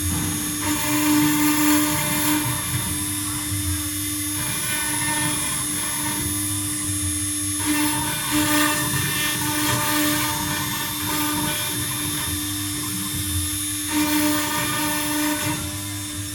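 CNC stone router's spindle running with a steady high whine while the bit grinds into stone. The grinding noise changes in texture every few seconds as the cut moves along.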